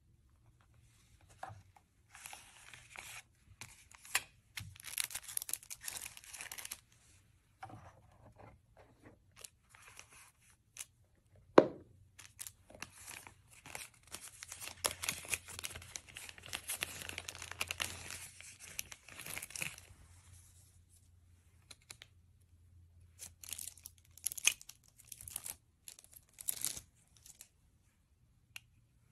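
Thin wrapping being unwrapped by hand from a pair of eyeglasses, rustling and crinkling in several spells of a few seconds each, with one sharp knock about a third of the way through.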